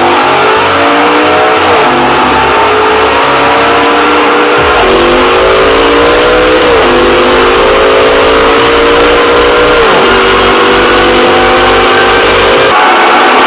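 V10 engine at full throttle, accelerating hard: the pitch climbs and drops sharply at each of about four upshifts, every two to three seconds.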